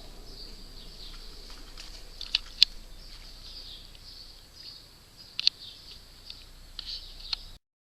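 Outdoor ambience with steady, faint high-pitched chirping and a few small sharp clicks.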